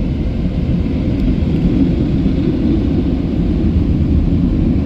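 Mark VII AquaJet GT-300 car wash dryers blowing a steady, loud blast of air over the car.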